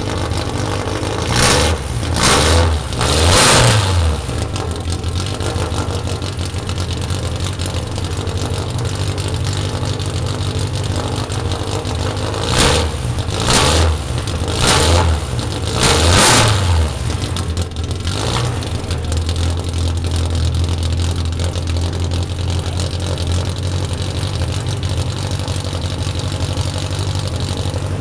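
Golden Submarine replica race car's engine idling steadily, with quick throttle blips: three in the first few seconds and four more about halfway through.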